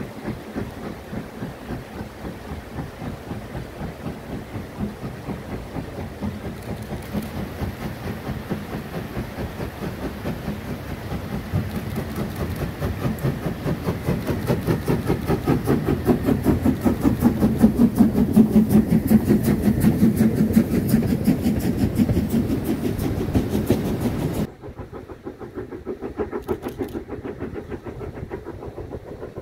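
Saxon VI K narrow-gauge steam locomotive 99 1715-4 chuffing in a quick regular beat as it works its train past, the chuffing growing louder as it comes closer. About 24 seconds in, the sound drops suddenly to quieter, more distant chuffing.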